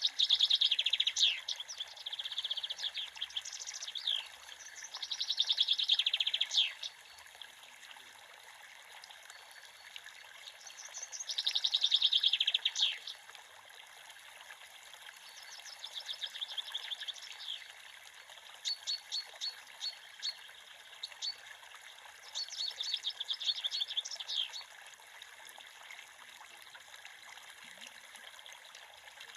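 A songbird singing short trilled phrases every few seconds over the steady rush of a small creek.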